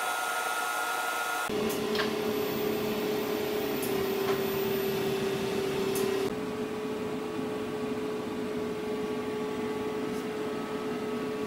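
Steady hum and hiss of the equipment in a robotic laser deposition cell, with a steady mid-pitched tone running through it and a couple of faint clicks.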